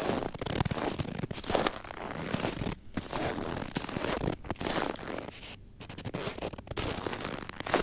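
Footsteps crunching and squeaking on cold, dry snow at a steady walking pace, one step every second or less. The squeak comes from snow packed hard by a frost of about -15 °C.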